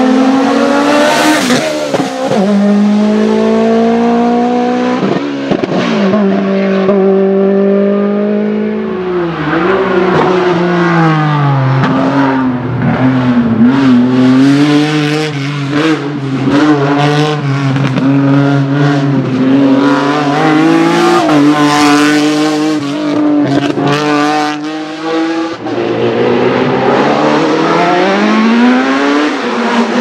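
Racing cars on a hillclimb course accelerating past one after another at full throttle, their engines revving up and dropping back in pitch with each gear change. Near the end a single-seater formula car's engine climbs steeply as it comes through.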